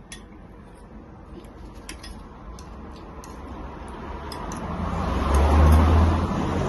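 A road vehicle passing close, its rumble building to its loudest about five and a half seconds in.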